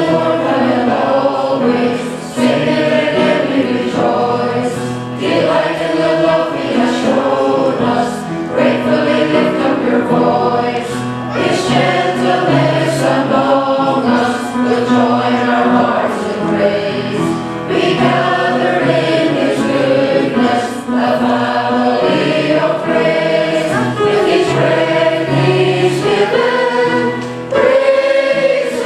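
Church choir singing an anthem.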